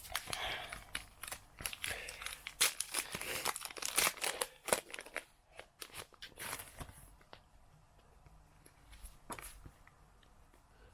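Plastic wrapper of a Match Attax trading card pack crinkling and tearing as it is opened: a dense run of rustles and crackles for about seven seconds, then only a few faint ones.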